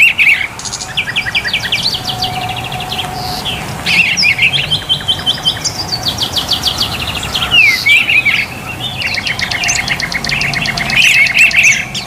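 Several small caged songbirds singing and chirping at once, in fast trills of rapidly repeated high notes that overlap and keep changing.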